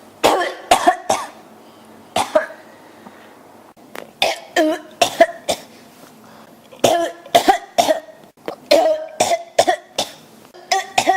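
A person coughing in a series of fits, each a quick run of a few sharp coughs, some of them voiced, from a throat that feels scratchy and irritated.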